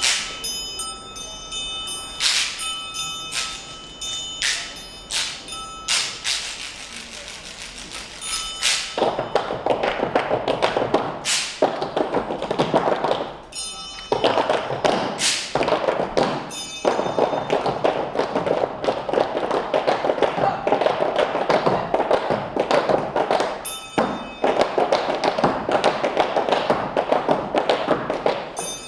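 Tap dancing with music: tap shoes striking the floor, with bell-like dings ringing over sharp strikes in the first third, then a fast, dense run of taps over the music.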